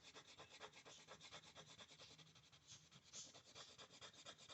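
Faint, quick back-and-forth strokes of colouring on paper, several a second, as an area of a drawing is shaded in.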